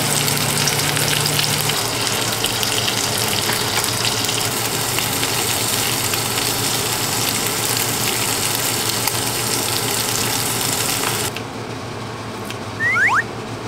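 Pork belly sizzling and frying loudly in a nonstick pan, with kimchi frying in the fat. About two seconds before the end the sizzle drops away, and metal tongs give a few quick squeaky scrapes near the end.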